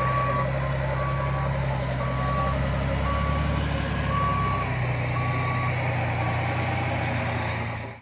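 LGMG MT60 mining dump truck's reverse alarm beeping about once a second over its steadily running diesel engine.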